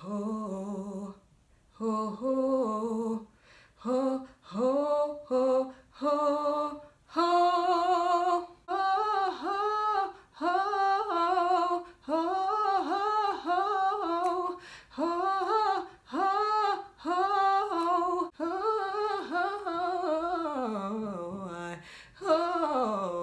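A woman singing a wordless R&B vocal riff slowly, note by note: short stepping notes at first, then a string of quick up-and-down notes, ending in a long falling slide.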